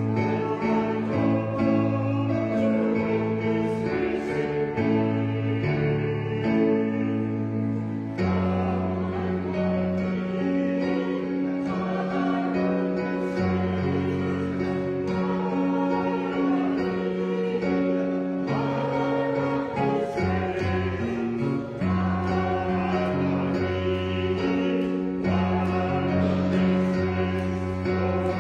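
A hymn sung with instrumental accompaniment, the chords held and changing every second or two.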